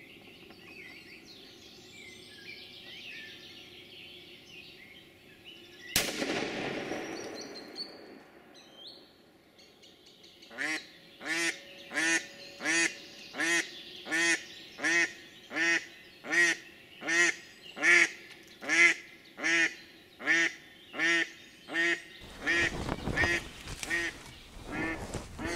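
A single shotgun shot about six seconds in, over faint songbird chirping, that rings out for a couple of seconds. From about ten seconds on a hen decoy duck quacks in a long even run, about three quacks every two seconds. Bumps and rustling close to the microphone come near the end.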